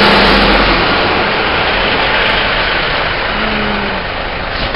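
Engine and road noise from motor traffic, a dense steady rumble and hiss that is loudest at first and slowly fades. A short knock comes near the end.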